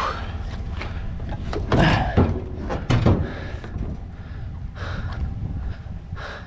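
Several knocks and clunks as a heavy piece of scrap is shifted and set down in the load, the two loudest about two and three seconds in, over a steady low rumble.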